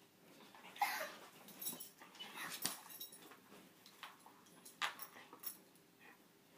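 A basset hound and another dog play-wrestling face to face: short bursts of dog noises and scuffling, coming at a few uneven moments.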